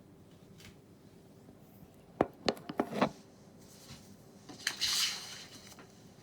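Kitchen dishes and containers being handled on a counter: a quick run of four or five knocks and clinks about two seconds in, then a short rustling hiss a couple of seconds later.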